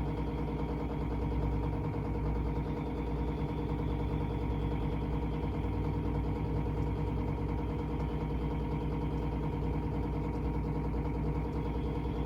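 A steady machine hum with a constant buzz, unchanging in pitch and level.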